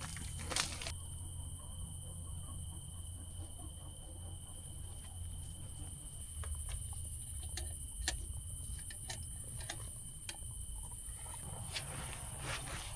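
Steady high-pitched insect chirring, typical of crickets at night, with a low rumble beneath and scattered light clicks and snaps.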